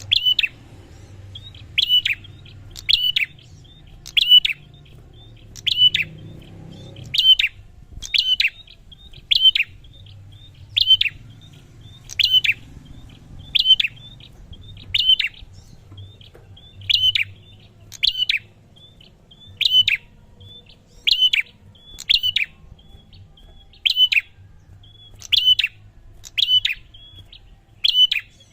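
Prinia (prenjak) calling: a sharp, high double note that falls in pitch, repeated evenly about every second and a half, over a faint low hum.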